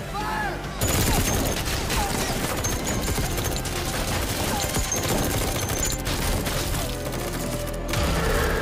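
A long volley of rapid gunfire from many guns firing at once, a dense stream of shots starting about a second in and stopping near the end.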